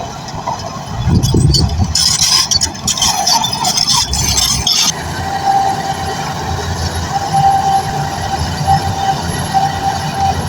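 SHANTUI bulldozer's diesel engine running steadily at work. A burst of hissing, rattling noise comes about two seconds in and stops abruptly about five seconds in. After that a high whine keeps cutting in and out over the rumble.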